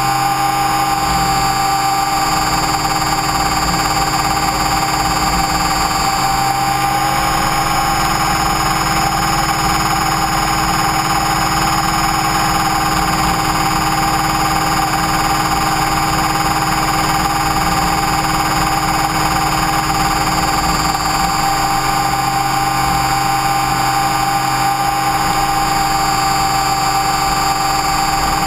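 Electric RC helicopter, an Align T-Rex 550E, heard from its own onboard camera in flight. Its motor and gear train give a steady high whine over a low rotor hum, and the pitch stays nearly constant throughout.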